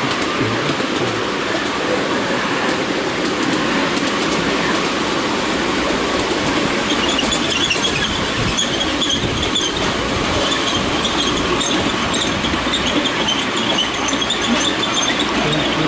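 Ride-on miniature railway train, hauled by a miniature Class 43 HST locomotive, running along the track, heard from aboard: a steady rumble and clatter of the wheels on the rails.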